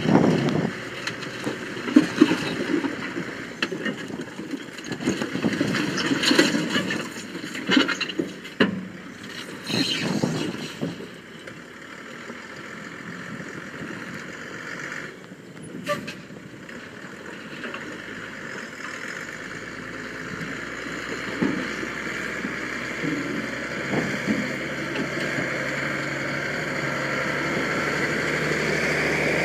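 Rock and broken concrete clattering and thudding as they slide out of an International dump truck's raised bed, many knocks over the first ten seconds or so. After that the truck's engine runs steadily and grows louder as the truck drives up.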